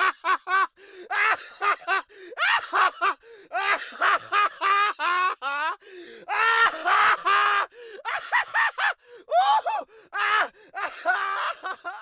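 A high-pitched comic voice sound effect: rapid, wordless babbling and squealing in short bursts that bend up and down in pitch, cutting off suddenly at the end.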